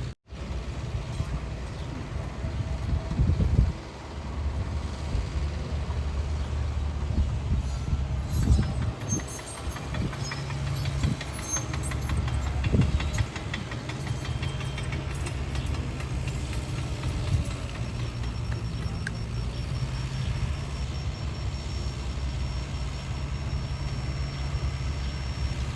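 Diesel engine of heavy construction equipment running steadily, with irregular knocks and metallic clanks from a few seconds in to about halfway through, and a faint high whine in the last part.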